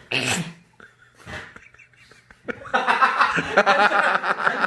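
Men breaking into laughter, giggling and snickering, from about two and a half seconds in, after two short sounds near the start.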